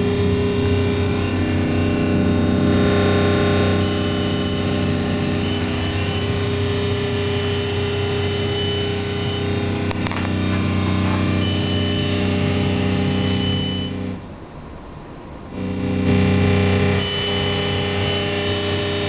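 Harsh, loud buzzing drone of many steady tones over noise, coming from a frozen PC's speakers. This is the crash noise of a computer overclocked on a Gigabyte X48T-DQ6 motherboard, which the owner ties to overclock instability. It drops away briefly about fourteen seconds in, then returns.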